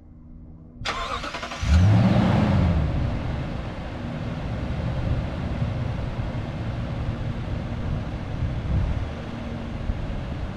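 Toyota Tundra's V8 remote-started from the key fob. The starter cranks for about a second, then the engine catches with a brief rev that rises and falls back, and it settles into a steady idle.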